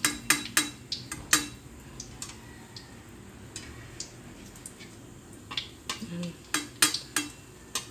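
Metal spatula clinking and scraping against a metal wok as Oreo pancakes shallow-fry in oil, over a faint frying sizzle. The clinks come in a quick run in the first second and a half and again around six to seven seconds in.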